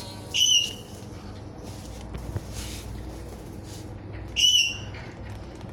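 Galah cockatoo giving two short, high, whistle-like calls about four seconds apart. Each call rises sharply and then holds.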